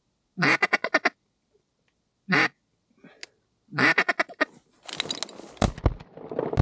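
Hand-blown duck call sounding a run of quacks, one lone quack, then another quick run. About five seconds in comes rustling, and then several sharp shotgun blasts in quick succession near the end.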